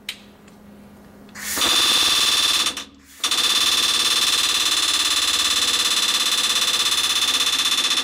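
Robot-mounted low-recoil pneumatic air hammer hammering. It starts in a short burst about a second and a half in, stops briefly, then runs continuously as a loud, rapid rattle of blows with a steady high-pitched tone over it.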